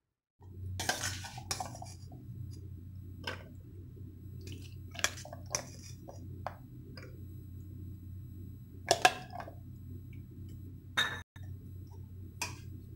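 Metal spoon clinking and scraping against a stainless steel bowl as corn chaat is spooned out and served, in about ten scattered knocks over a steady low hum.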